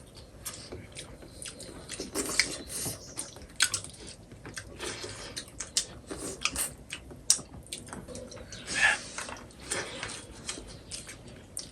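A person eating buffalo leg soup with rice close to the microphone: irregular chewing, lip smacks and wet mouth clicks, with the odd slurp.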